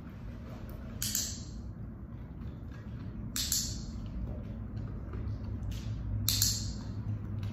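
Dog-training clicker clicking three times, a couple of seconds apart, each click marking the dog's chin rest just before a treat, over a steady low hum.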